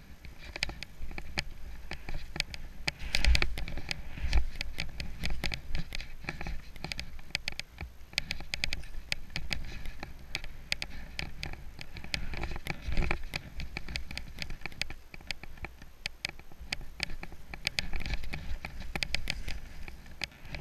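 Skiing downhill in snow, heard through an action camera: skis scraping and hissing over the snow with a low wind rumble, and a dense run of irregular sharp clicks and taps throughout, louder around three to four seconds in and again near thirteen seconds.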